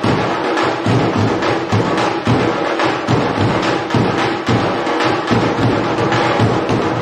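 Percussion music with drums and sharp clacking strokes, playing a dense, fast beat without a break.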